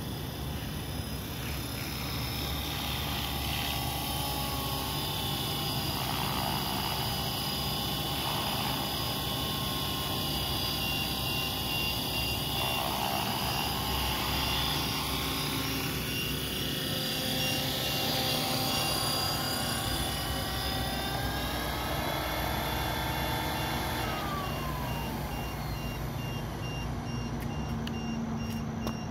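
RC helicopter's motor and rotor whining in a hover, the pitch drifting with throttle, then winding down about 24 seconds in as it lands. A low-battery alarm beeps repeatedly at a high pitch, warning that the battery is low.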